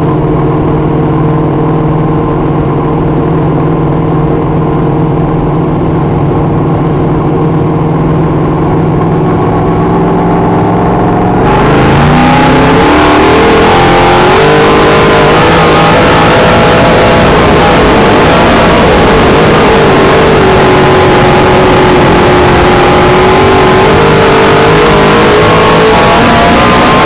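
A dirt modified race car's V8 engine heard from inside the cockpit. It runs steadily at low throttle, then a little under halfway through the throttle opens and the engine climbs quickly in pitch and gets louder. It then stays at high revs, its pitch rising and falling as the car speeds along the track.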